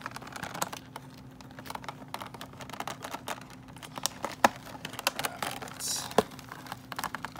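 Hands handling a fashion doll in its cardboard-and-plastic packaging, making a run of small clicks, taps and rustles as the plastic securing ties are worked loose. Two sharper, louder clicks come about four and a half and six seconds in.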